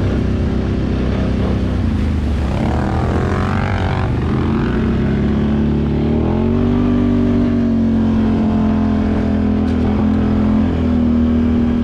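Can-Am ATV engine running under way on a trail. The engine speed changes during the first half, then holds steady.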